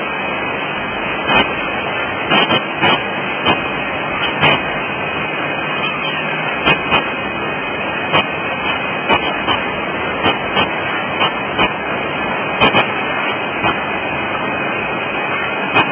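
Automatic packaging machine running: a steady mechanical noise with sharp clicks and clacks at irregular intervals, about one a second.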